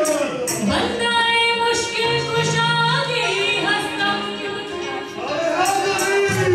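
A woman singing a ghazal live into a microphone, holding long notes, over a steady low instrumental accompaniment.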